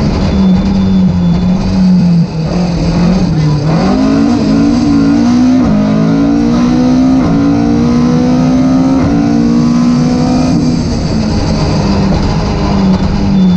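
Rally car engine heard from inside the cabin, pulling hard on a straight. After a brief dip about three and a half seconds in, it accelerates through several upshifts, each a short drop in pitch, then holds a steady note from about ten seconds on.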